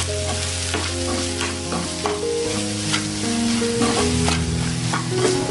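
Onion-tomato masala with spice powders frying and sizzling in oil in a metal kadhai, as a steel spoon stirs it and scrapes the pan bottom again and again. Background music plays underneath.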